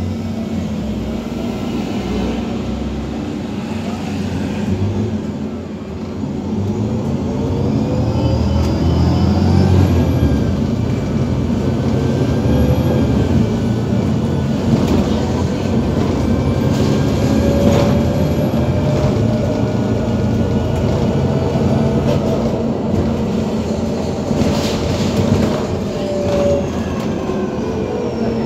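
Ride noise inside an Iveco Urbanway 18 GNV articulated natural-gas city bus under way: a steady engine and road rumble that grows louder after about six seconds as the bus picks up speed, with whines that rise in pitch and then level off.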